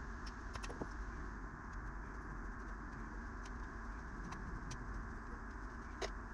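Faint clicks and scrapes of a small hand tool working on the flywheel side of a chainsaw, over a steady background hum, with one sharper click about six seconds in as a small part is set into a plastic tub.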